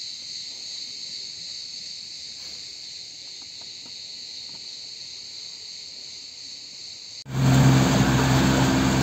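Insects chirping in a steady, high-pitched trill. About seven seconds in, this cuts suddenly to a much louder outboard motor running steadily at speed, with a low engine tone and water and wind rushing past the boat.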